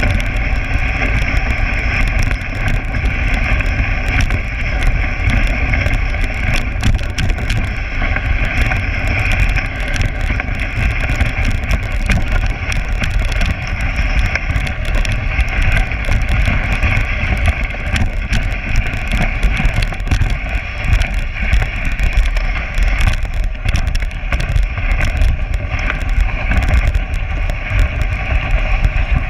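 Dog sled running over packed snow: the runners hiss and scrape steadily, the sled knocks and rattles over bumps, and wind rumbles low on the microphone.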